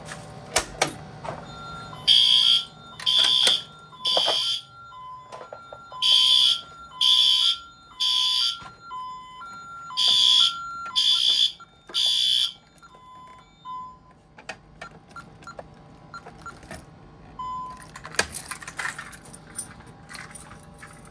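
Fire alarm horn sounding the temporal-3 pattern on battery backup with the AC power off: three short blasts, a pause, repeated three times, then it stops about 12 seconds in. A quieter alternating two-note beep runs underneath and carries on a little after the horn stops. A few small clicks follow.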